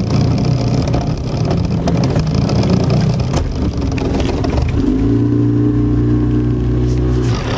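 Fishing boat's motor running, a rough, even engine noise; about five seconds in a steadier, pitched motor hum takes over and cuts off abruptly just before the end.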